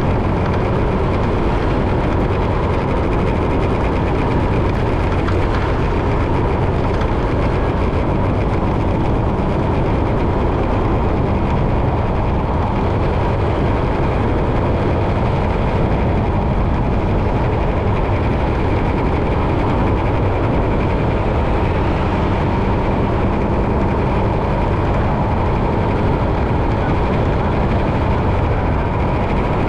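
Steady low rumble of a moving vehicle and its road noise, with a faint even hum and no breaks or changes.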